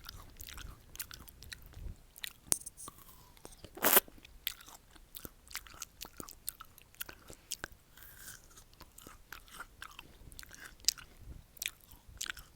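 Close-miked eating of a raw pear: crisp crunching bites and wet chewing, with one loud crunch about four seconds in.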